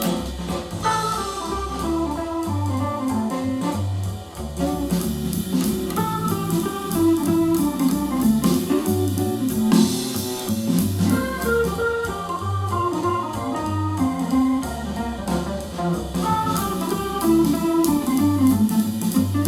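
Instrumental music with a steady beat and a repeating bass line, played at 80% volume through a portable Bluetooth speaker and recorded from about six feet away.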